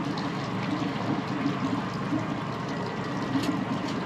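Water sloshing and trickling, a steady irregular wash, with a faint click about three and a half seconds in.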